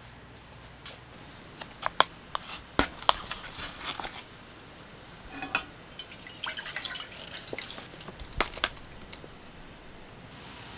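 Small objects being handled: scattered light clicks and taps with soft rustling, and a few sharper knocks about two to three seconds in and two more late on.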